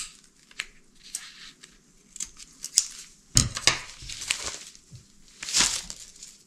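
Scissors snipping through a sheet of self-adhesive felt, then crinkling and rustling of the sheet's plastic sleeve and backing paper as it is handled, loudest about three and a half seconds in and again near the end.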